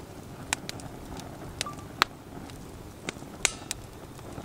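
Split firewood burning on a fire stand grate, crackling with sharp, irregular pops over a soft steady rush of the flames.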